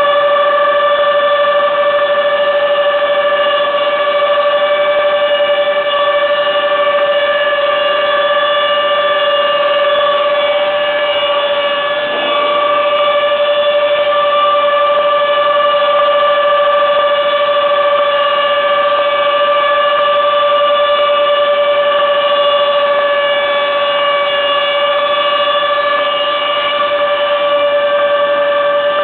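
Steady, high-pitched mechanical whine from a plank-jointing woodworking machine running, one unchanging pitch with overtones, dipping slightly for a moment about twelve seconds in.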